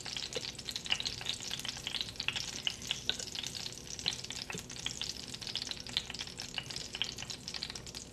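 A metal fork stirring and scraping through a ceramic dish of flour to dredge battered milkweed pods, with many faint, irregular ticks and clicks against the dish.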